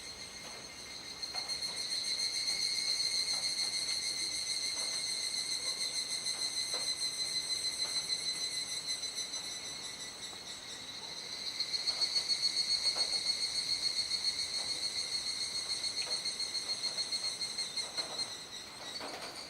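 A chorus of cicadas calling, a steady high buzzing trill. It swells for several seconds, eases off about ten seconds in, then swells again.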